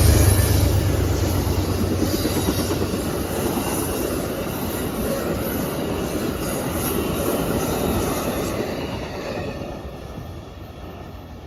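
Amtrak passenger train rolling past, a deep rumble at the start giving way to the rushing noise of wheels on rail. The sound fades away over the last few seconds as the train moves off.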